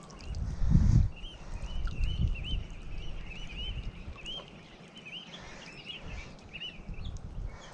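Small birds chirping, many short rising-and-falling notes repeated several times a second, over a low outdoor rumble that swells briefly about a second in.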